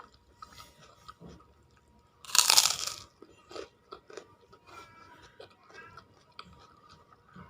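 A person biting into crunchy food close to the microphone: one loud crunch about two and a half seconds in, with smaller crunches and chewing around it.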